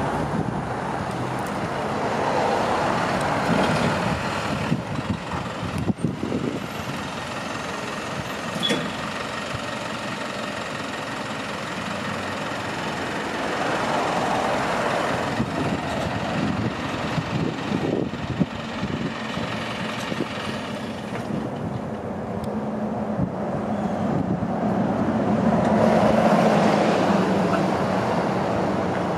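Road traffic: vehicles passing one after another, the noise swelling and fading several times, with a low engine hum growing loudest near the end as a heavier vehicle goes by.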